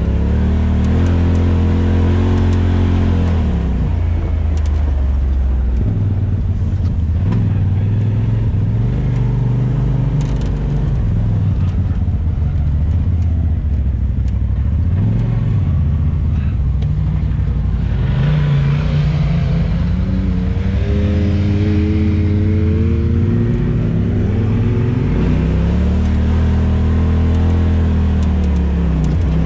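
Off-road vehicle engine running under way, its pitch rising and falling repeatedly as the throttle is opened and eased.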